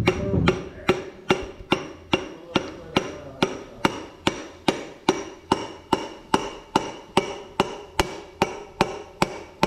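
Steady tapping, about two and a half taps a second, each tap ringing briefly. A hammer handle is knocking a piston down through a ring compressor into a cylinder of a 1941 Ford 9N engine block.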